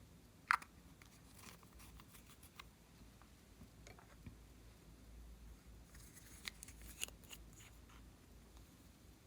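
Glossy slime being worked by hand, with faint sticky clicks and crackles. One sharp click comes about half a second in, and a cluster of clicks comes about two-thirds of the way through.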